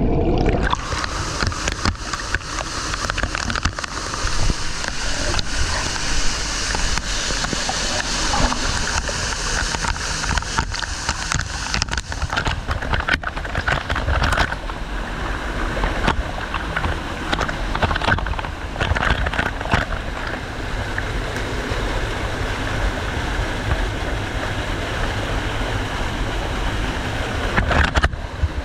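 Waterfall rushing and splashing close to the microphone, a steady loud wash of falling water with crackling splashes.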